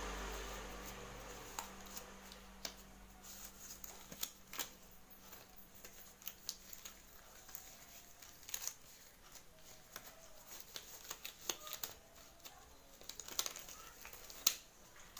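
Scattered light clicks, taps and rustles of small objects being handled, irregular throughout, over a low hum that fades out in the first few seconds.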